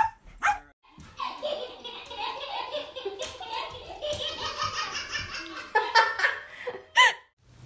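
Laughter: a long run of rapid, repeated laughing lasting about six seconds, with a short high rising-and-falling cry near the end.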